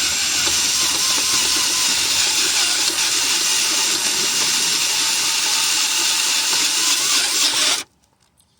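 Power drill running at low speed, its bit cutting a hole through metal, with a wavering whine; it stops suddenly about eight seconds in.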